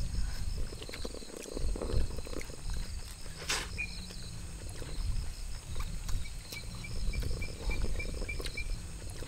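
Crickets chirping steadily in the dark, with a second, lower chirping of about five pulses a second joining about two-thirds of the way in. Close eating sounds (chewing, and bowls and chopsticks being handled) run underneath, with one sharp click about three and a half seconds in.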